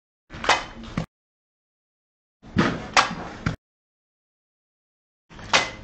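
Kitchen axe forged from a tractor disc-plough blade chopping slices off a green banana stem: four sharp chops in three short bursts, with dead silence between them.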